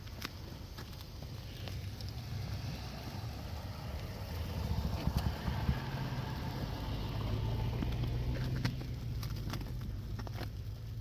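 A car passing on a snowy street: a low rumble that swells through the middle and eases off near the end, with scattered crunching clicks of footsteps in the snow.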